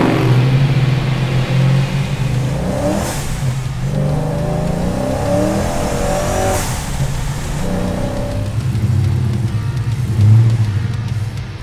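Procharger-supercharged 408 cubic-inch LSX stroker V8 in a 1972 Pontiac GTO accelerating hard. The engine's pitch climbs and drops back twice as the six-speed manual shifts up, with a short hiss at each shift. It settles into a steadier drone near the end.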